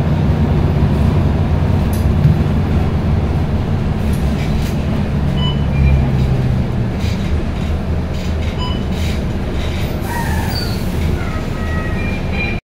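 Interior running sound of a MAN NG363F articulated city bus with a Voith DIWA automatic gearbox: its diesel engine drones steadily, then the engine note falls about two-thirds of the way through as the bus slows. Cabin rattles and clicks come through, with a few short squeals near the end.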